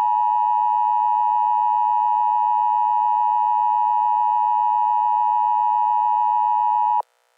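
Emergency Alert System attention signal: a steady electronic tone, unchanging in pitch and level, that cuts off suddenly about seven seconds in.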